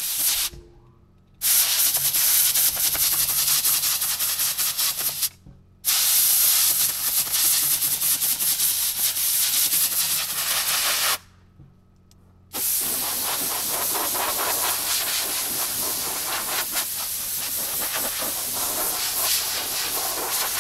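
Compressed-air blow gun hissing as it blows dust out of an excavator's air filter element, in long blasts of several seconds with three short breaks.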